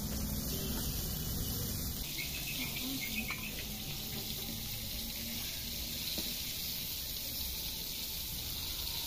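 Chicken pieces deep-frying in a pan of hot oil, a steady sizzling hiss, with a faint tap or two of a slotted spoon as the fried pieces are lifted out.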